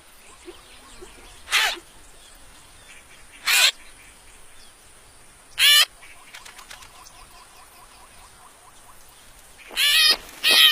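An animal's short, high-pitched calls: three single calls about two seconds apart, then several in quick succession near the end.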